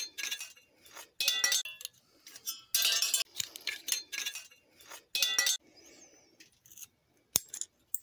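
Pliers prying the thin metal cooling fins off a microwave magnetron's core: several short bursts of metallic clinking and scraping, with one sharp click near the end.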